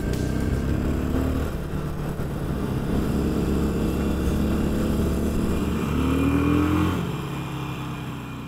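Motorcycle engine running under way, its pitch rising about six seconds in, then fading out near the end.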